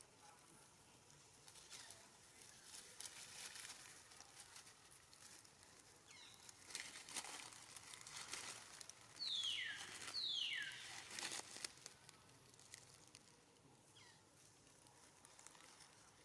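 Dry fallen leaves rustling and crackling as long-tailed macaques move and forage over them. Two short high calls that fall steeply in pitch come about a second apart near the middle and are the loudest sounds.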